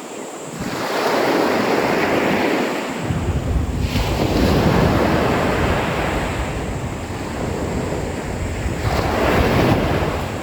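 Sea waves surging and washing ashore in repeated swells, with wind rumbling on the microphone from about three seconds in.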